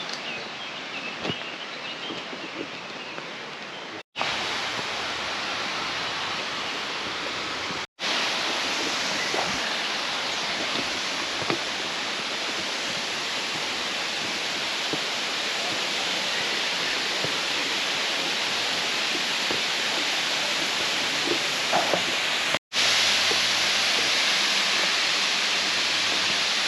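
Rushing water of Manoa Falls, a steady hiss heard in several short takes cut together. Each take is louder than the one before.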